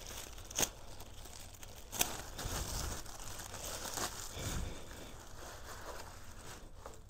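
Clear plastic wrap crinkling and tearing as it is pulled off and bunched up by hand. There are two sharp snaps in the first two seconds, then a dense stretch of crackling.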